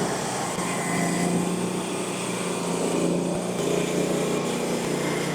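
Frontier OS35 hydraulic bandsaw mill running steadily, its small engine holding an even speed.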